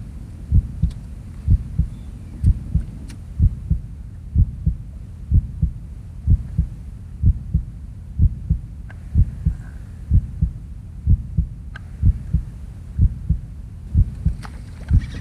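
Background music: a low, thudding bass beat with about one heavy thump a second and lighter thumps between.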